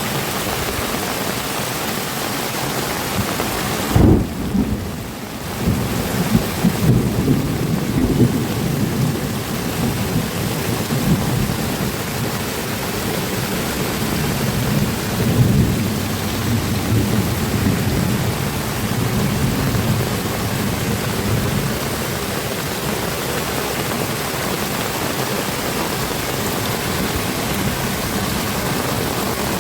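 Heavy rain falling steadily, with a sudden loud thunderclap about four seconds in, followed by thunder rumbling low and unevenly for about fifteen seconds before fading back under the rain.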